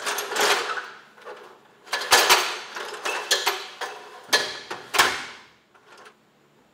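An extension ladder being handled and stood up against a wall: its rungs and hardware clank and rattle with short metallic ringing. The loudest clanks come about two seconds in and again about five seconds in.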